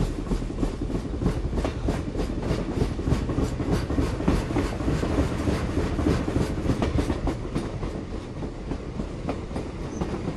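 A train rolling along the track, with a steady clickety-clack of wheels over the rail joints that eases slightly near the end.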